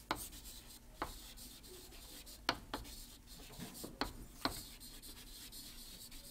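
Chalk writing on a chalkboard: faint scratching, broken by several short, sharp taps.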